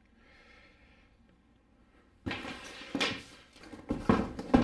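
Near silence for about two seconds, then handling sounds begin suddenly: a cardboard laptop box being moved and rubbed, with several knocks, the loudest near the end.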